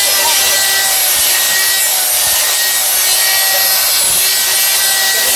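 Handheld electric die grinder running steadily with a burr inside a motorcycle carburetor's bore, grinding the metal to open up the carburetor's throat. It gives a steady high whine over a constant grinding rasp.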